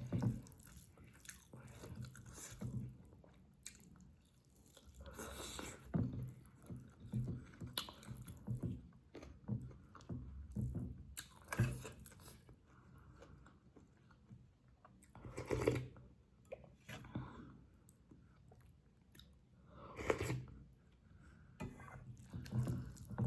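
Close-up eating sounds of spicy chicken with gravy rice: wet chewing and mouth smacks going on irregularly, with a few louder crunchy bites spread through.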